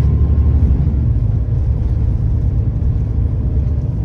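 Scania K340EB4 coach's diesel engine and road rumble heard from inside the passenger cabin while the coach is under way, a steady, loud low drone.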